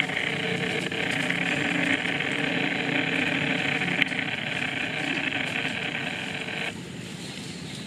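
Cicadas buzzing: a steady high-pitched drone that cuts off abruptly about seven seconds in.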